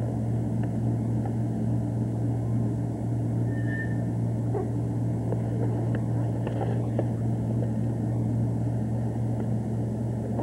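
A steady low hum runs throughout, with a few faint soft ticks and rustles over it.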